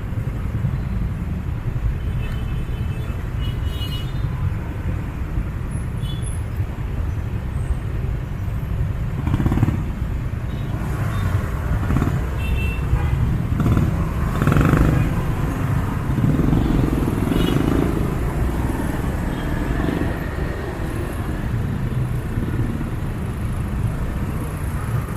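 Street traffic of motorcycles and cars passing steadily, with louder swells as vehicles go by about a third of the way in and near the middle.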